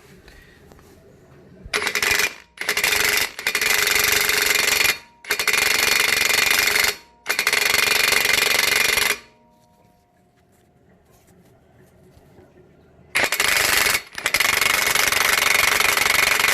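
HiKOKI WR36DB cordless impact wrench hammering in about six bursts of one to two seconds each, with a pause of a few seconds in the middle. It is on mode 1, its lowest setting, and fails to break loose a nut on a 32 mm socket.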